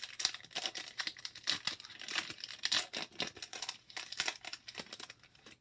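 Foil wrapper of a hockey card pack crinkling and tearing as it is opened by hand: a dense run of sharp, irregular crackles that fades away near the end.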